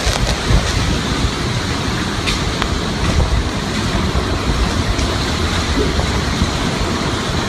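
Hurricane wind buffeting the microphone: a loud, steady rumbling rush with a few faint ticks.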